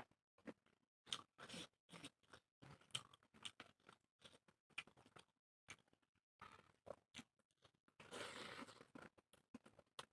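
Close-up eating sounds: a person chewing and biting food in short, irregular crunches, with a longer stretch of noise near the end.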